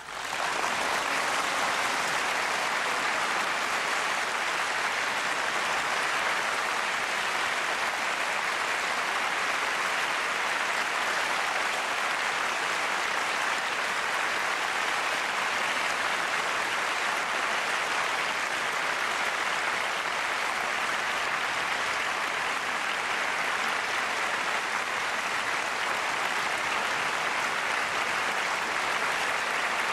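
Audience applauding, breaking out all at once and then holding steady and dense.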